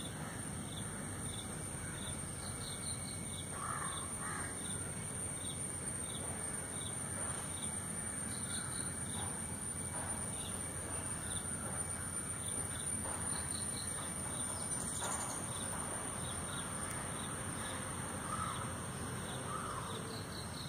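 Outdoor ambience: a steady high-pitched insect drone, a short chirp repeated about once a second, and a few harsher bird calls now and then.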